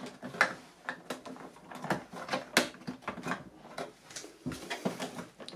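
Light plastic clicks and knocks from the battery compartment of a Sharp XE-A213 cash register as its cover and backup batteries are prised out by hand, a step in the factory reset. The clicks come irregularly, several a second.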